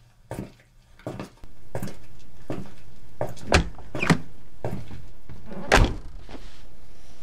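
Alfa Romeo GTV's door being worked: a few light footstep-like clicks, then sharp thunks of the handle and latch, the loudest near the end as the door shuts. A steady hum comes in about a second and a half in.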